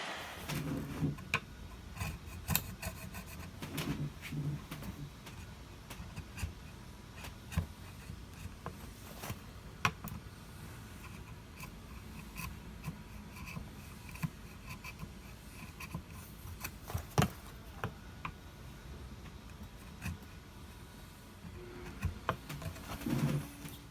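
Hand work on the wooden boat build: rubbing and scraping with scattered light clicks and taps, and a few sharper knocks.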